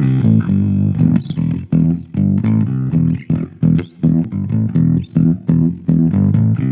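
Electric guitar played through an amplifier rig: a riff of short, stop-start chords with brief gaps between them, about two a second, heavy in the low end.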